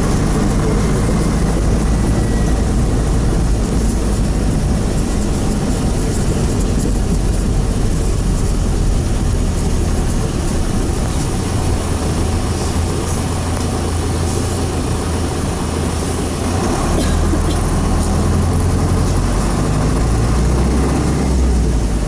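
Steady engine and road noise of a PAZ-32054 bus in motion, as heard from inside. A few short clicks come in the second half.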